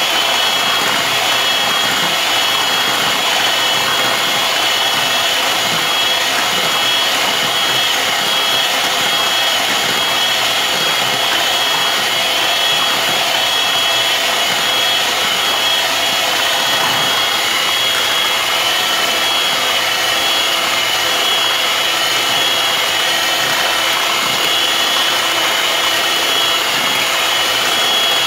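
Electric hand mixer running steadily with a high whine, its beaters whisking melted butter into beaten eggs and sugar in a bowl.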